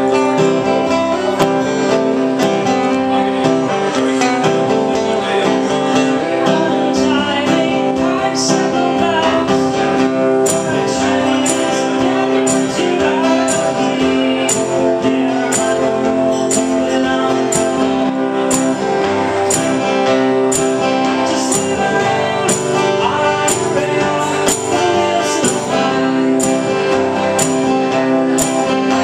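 Two acoustic guitars strummed together, playing a song live. A regular percussive tapping beat joins about ten seconds in, at about two beats a second.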